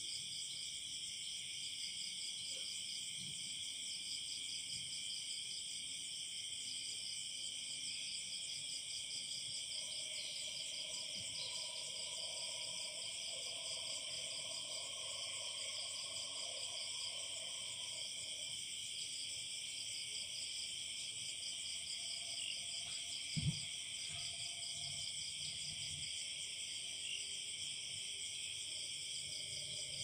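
Night chorus of crickets, a steady high-pitched trilling that never lets up. A fainter, lower call drifts in for several seconds in the middle, and there is a single soft thump about two-thirds of the way through.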